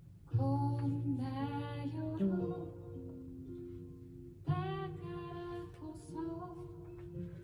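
A recorded song with a woman singing long held phrases over an instrumental backing, one phrase starting about half a second in and the next about four and a half seconds in.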